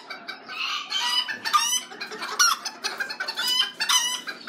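Caged miniature bantam chickens clucking and calling, several birds at once, with short high-pitched calls coming every half second to a second.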